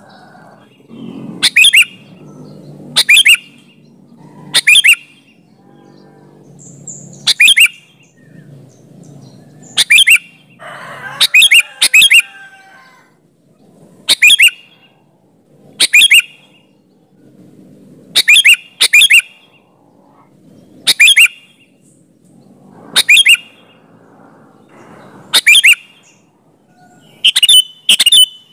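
Sooty-headed bulbul singing vigorously: short, loud, sharp chirped phrases repeated every second or two, several of them in quick pairs.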